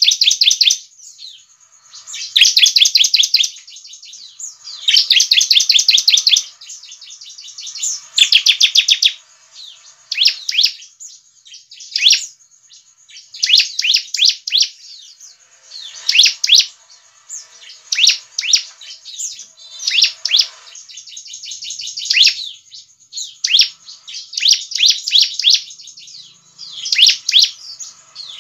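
Bar-winged prinia (ciblek) calling in bursts of fast, high, repeated chattering notes, each about a second long and coming every couple of seconds. The bursts turn shorter and more broken in the second half.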